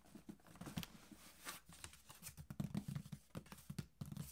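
Cardboard shipping boxes being set down on a wooden desk and handled by hand: a quick, irregular run of soft knocks, taps and scrapes against the cardboard, busiest in the middle and near the end.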